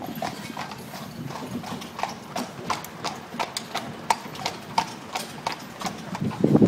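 Carriage horse's hooves striking the asphalt street in a steady clip-clop, about three strikes a second, as it pulls a horse-drawn carriage. A louder rumble rises near the end.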